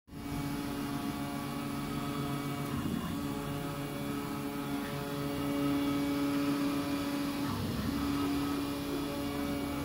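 MINGDA MD-666 large-format FDM 3D printer printing. Its stepper motors whine in several steady tones that shift now and then as the print head changes direction, over the even hiss of its cooling fans.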